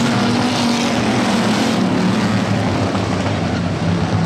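A pack of stock V8 dirt-track race cars running at speed, several engines droning together steadily.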